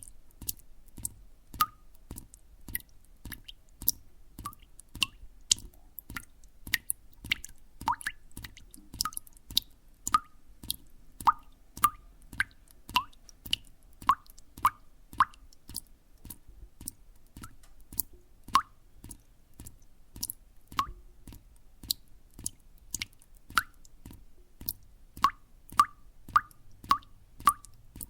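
Water drops dripping one after another at an uneven pace of about two a second, each a short plink that rises in pitch.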